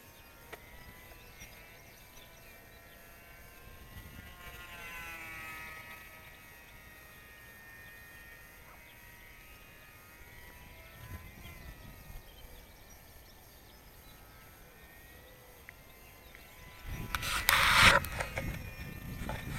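Distant RC model airplane motor whining faintly overhead, its pitch slowly rising and falling as the plane flies around. Near the end, loud rough rumbling from handling or wind on the microphone covers it.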